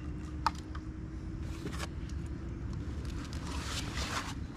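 Rope and crab-pot netting being handled: soft rustling scrapes twice, and a sharp click about half a second in, over a steady low rumble.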